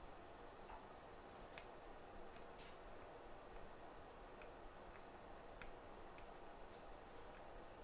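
Near silence: quiet workshop room tone with about nine faint, irregularly spaced clicks.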